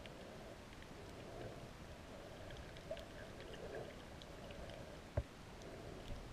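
Underwater ambience picked up by a submerged camera: a low muffled water rumble with scattered faint ticks and crackles, and one sharp knock about five seconds in.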